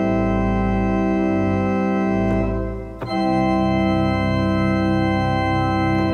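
Organ playing sustained chords. A little before halfway it moves, with a brief dip in level, to a new chord that is held steadily: the closing chords of a piece.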